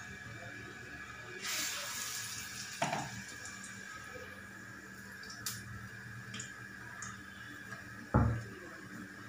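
Batter-coated curry leaves sizzling as they go into hot mustard oil, a loud burst of sizzling about a second and a half in, with a few light clicks of steel utensils after it. A heavy thump near the end is the loudest sound.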